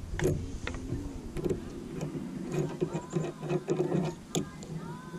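A radio playing music with singing, with scattered light clicks and taps as a black plug cap is pressed into an access hole in the van's sheet-metal roof.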